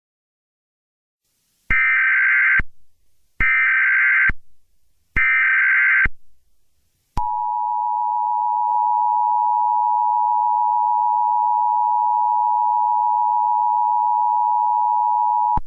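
Emergency Alert System alert opening: three short bursts of SAME header data, each about a second long, then the steady EAS two-tone attention signal held for about eight seconds.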